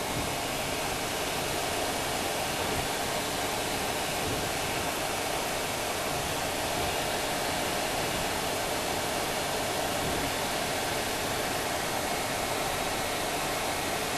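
Hot air wand of an 853D rework station blowing a steady rush of hot air.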